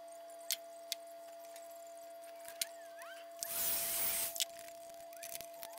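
A couple of light clicks from hand-crimping a lug onto a battery cable, then a heat gun blowing for just under a second about three and a half seconds in, shrinking heat shrink over the lug. A faint steady tone sits underneath.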